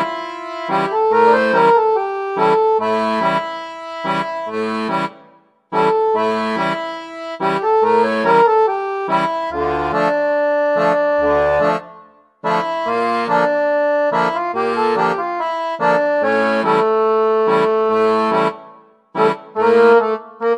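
Background music led by an accordion-like reed melody over a steady bass-and-chord accompaniment, in short phrases that pause briefly about every six seconds.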